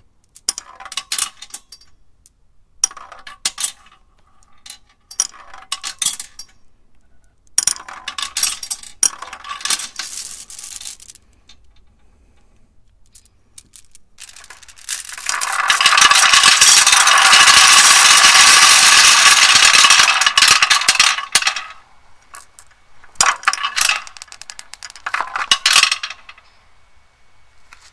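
Glass marbles dropped in handfuls into a motorcycle's stainless Arrow exhaust silencer, clinking and rattling down inside the metal in several short bursts. About fifteen seconds in, a whole net bag of marbles is emptied into the pipe, a loud rattling cascade lasting about six seconds.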